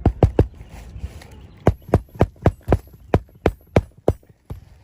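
A quick series of sharp knocks from a hand tool working under a lifted asphalt shingle to get at a roofing nail. Three come close together at the start, then about nine follow at a steady pace of roughly three a second before stopping.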